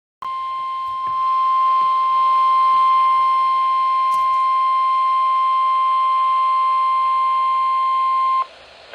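NOAA Weather Radio warning alarm tone: one steady high 1050 Hz tone held for about eight seconds, getting louder about a second in and then cutting off sharply. It is the alert signal sounded for the weekly test of the weather radio station.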